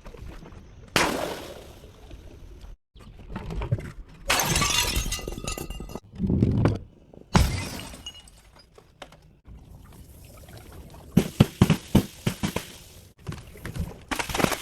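Glass bottles smashing one after another, each a sharp crash followed by shards clattering, with a heavier dull thud among them and a quick run of impacts near the end.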